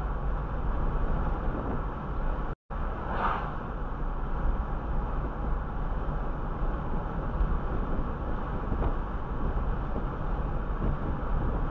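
Steady road and tyre noise of a car driving at about 28 mph, heard from inside the cabin through the dashcam. About two and a half seconds in the sound cuts out completely for a moment, and just after it an oncoming car whooshes past.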